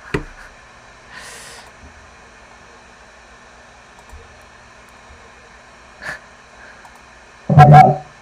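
Mostly quiet room tone with a soft breath about a second in, then one short, loud burst of a person's breath or voice near the end.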